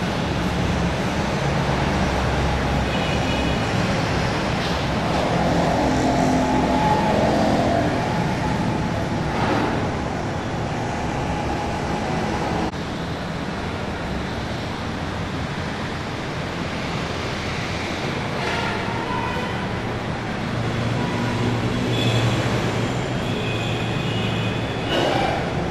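Steady background noise, like distant traffic, with a few faint high tones about three seconds in and again near the end.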